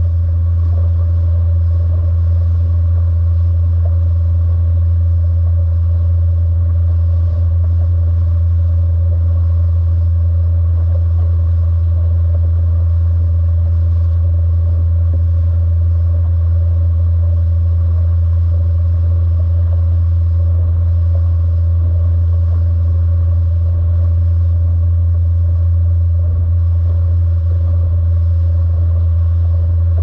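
Motorboat engine running at a steady cruising speed: a loud, unchanging low drone. The wake's water hiss sits faintly underneath.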